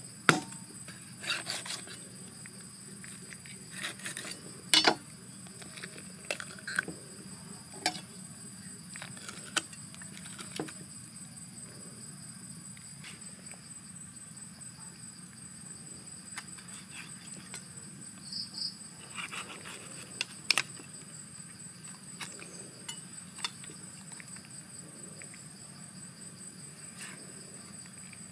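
Cleaver cutting a raw stingray on a wooden chopping board: scattered sharp knocks and scrapes, loudest near the start, about five seconds in and about twenty seconds in, over a steady high-pitched insect drone.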